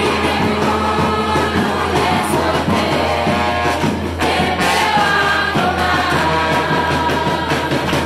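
Small brass band of trombones and a trumpet playing a lively tune over a marching bass drum and snare drum.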